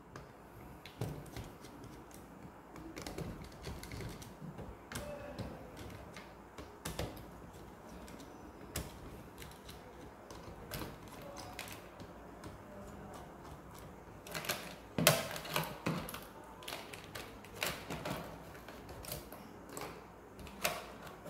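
Scattered clicks and taps of a screwdriver working the terminal screws of miniature circuit breakers and of wires being pulled from a plastic panel board, with a louder run of clicks about fifteen seconds in.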